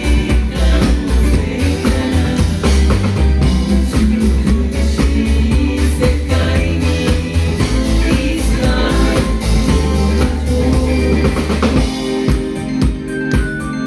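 Live band playing an instrumental passage, with a drum kit and strong bass notes. About twelve seconds in the bass drops out, leaving lighter, sparser playing.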